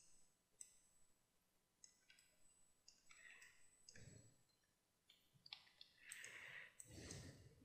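Near silence with faint, scattered clicks of a computer mouse and keyboard as a 3D mesh is edited, with a couple of soft low rustles about four and seven seconds in.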